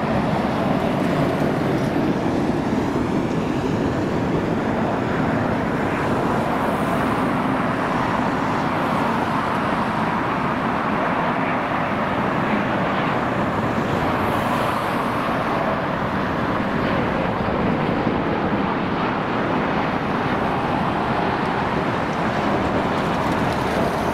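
Steady road traffic noise with jet aircraft noise mixed in, holding an even level throughout.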